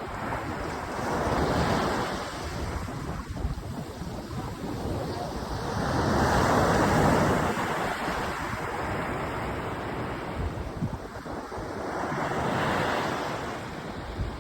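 Gulf of Mexico surf: small waves breaking and washing up the beach, swelling three times, with wind buffeting the microphone.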